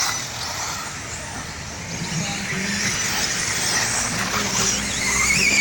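Electric 4WD RC off-road cars racing: the high whine of their electric motors rising and falling as they accelerate and slow.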